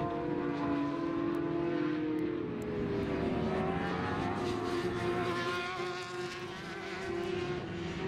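Superbike racing motorcycle engines running hard as a pack passes through a corner: one engine's note falls steeply about three seconds in, then several notes climb together as the bikes pull away.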